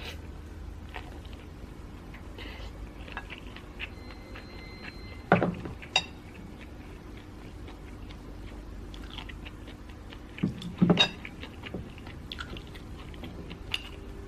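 Close-miked chewing of stir-fried sticky rice, with small wet mouth clicks throughout and two louder short knocks, about five and eleven seconds in.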